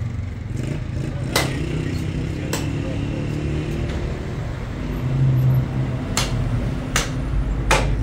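Butcher's cleaver chopping meat on a block: five sharp, irregular chops, over a steady low engine-like hum.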